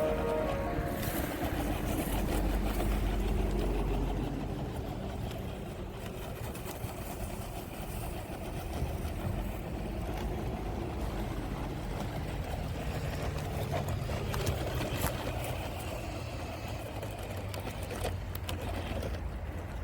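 HBTOYS ZP1001 radio-controlled off-road truck driving over rough ground: its small electric motor and drivetrain whirring, with a few scattered knocks.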